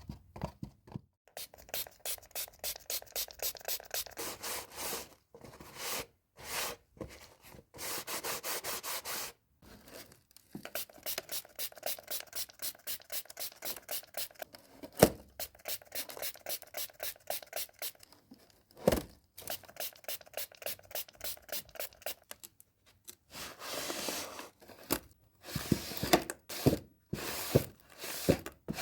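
Runs of quick, rhythmic scraping and rubbing strokes, several a second, broken by short pauses, with a couple of sharp knocks partway through.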